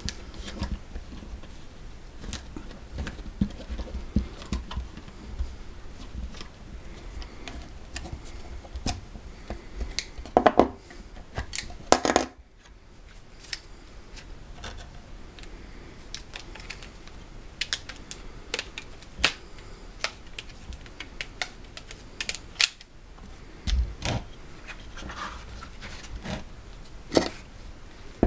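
Handling noises of a small adjustable wrench and its leather wrapping being worked by hand: scattered small metal clicks and clinks, taps on a wooden board and rustling leather, with a few louder knocks and rustles about ten to twelve seconds in.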